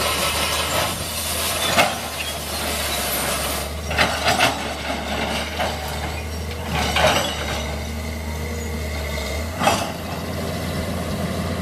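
Keihatsu KH921C 20-ton hydraulic excavator running steadily under load, its bucket scraping and knocking against gravel in four short bursts.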